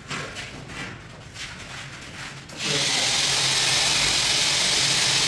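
A handheld electric power tool starts up about halfway through and runs steadily with a loud, high hissing whir, after a few light knocks.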